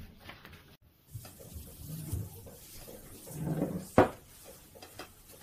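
Hands handling raw chicken strips in a glass mixing bowl: soft, uneven rustling and handling noise, with one sharp knock about four seconds in.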